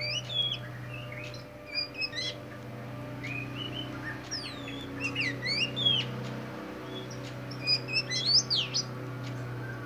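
Caged black oriental magpie-robin (kacer hitam) singing: clear whistled phrases of rising and falling notes in short bursts, pausing between phrases.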